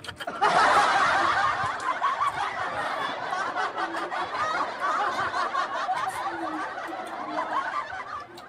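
Laughter from a crowd of people, starting abruptly and fading away near the end, most likely an added laugh-track sound effect.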